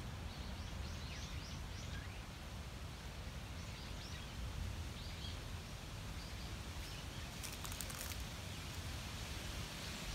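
Outdoor ambience: a steady low wind rumble on the microphone, with faint, repeated small-bird chirps. A brief crackling rustle comes about seven and a half seconds in.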